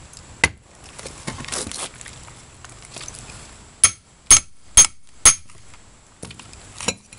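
Claw hammer striking the back of a hatchet head set in a piece of resinous pine fat wood, splitting it: a knock about half a second in, then four sharp, ringing metal-on-metal blows about half a second apart, and a lighter blow near the end. The hammer is used because the axe is dull.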